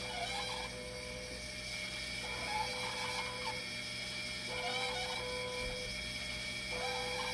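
Dialysis machine running in a repeating cycle: a steady hum and whine with a short warbling mechanical sound about every two seconds, and a mid-pitched tone that comes and goes in spells of about a second.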